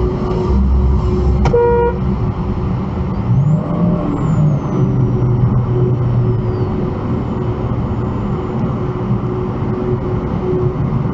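Steady highway driving noise from inside a vehicle at about 60 mph, tyre and engine rumble with road hiss, and a short car horn beep about a second and a half in.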